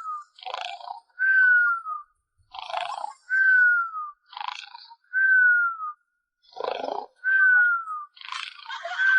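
A person snoring heavily in drunken sleep, each breath a rasping snort followed by a falling whistle, repeating about every two seconds.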